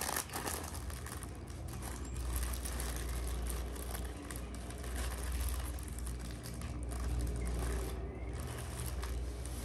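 Baking paper crinkling and rustling under the hands as a sponge cake roll is rolled up and wrapped in it, over a steady low rumble.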